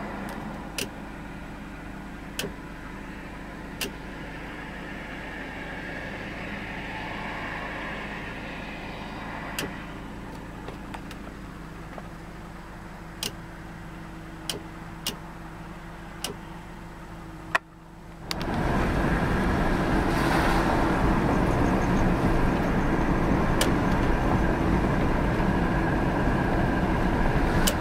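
Cabin sound of a 2004 Subaru Forester XT driving, with its turbocharged flat-four engine and the road making a steady low hum, broken by scattered sharp clicks. About 18 seconds in, the sound switches abruptly to a much louder, rougher stretch of engine and road noise.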